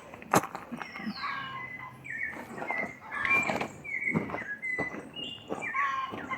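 Birds chirping with short, repeated notes, some sliding down in pitch. A single sharp click or knock comes just under half a second in.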